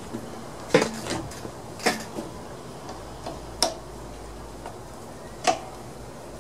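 Irregular sharp clicks and taps of a hand tool against the carburetor fittings of a small Briggs & Stratton overhead-valve engine as the carburetor is worked loose for removal, four of them louder than the rest.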